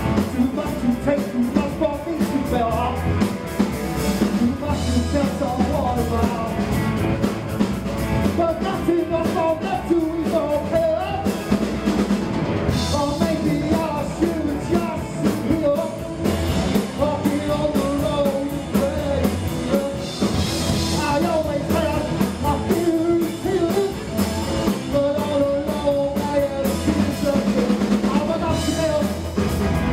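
A rock band playing live: electric guitar, drum kit and a male singer, loud and continuous.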